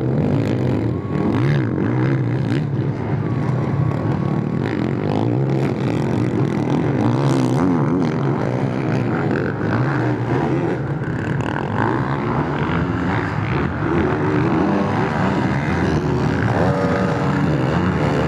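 Motocross bike engines racing, revving hard and dropping off again and again as the riders accelerate, shift and land jumps, with more than one bike heard at once.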